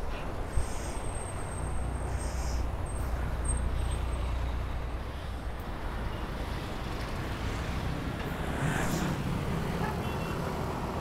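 Street traffic heard from a moving bicycle: a steady low rumble of road and vehicles, with a motor vehicle's engine passing louder about nine seconds in.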